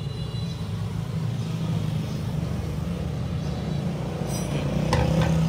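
Steady low engine rumble, as of a motor vehicle running close by, with a few light sharp clicks near the end.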